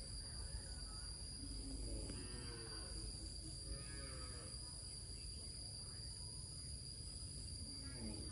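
Cattle lowing three times, about two seconds in, about four seconds in and near the end, over a steady high-pitched insect drone.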